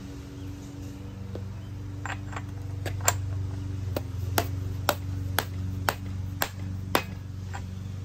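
A hammer tapping a socket held over the crankshaft snout of a Ford 302 small-block V8, driving the crank sprocket of the double-roller timing set onto the crankshaft until it seats. There are about a dozen sharp metallic taps, roughly two a second, starting about two seconds in, over a steady low hum.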